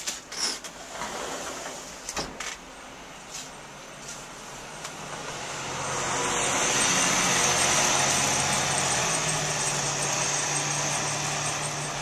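A car's engine and tyres on a snowy street, swelling in from about five seconds in and then holding steady with a low engine hum. A few sharp clicks and knocks come in the first seconds.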